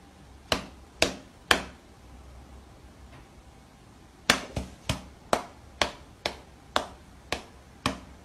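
A cat's paw slapping against a person's open palm in a high-five game: short sharp pats, three about half a second apart, then after a pause a quicker run of about nine, roughly two a second.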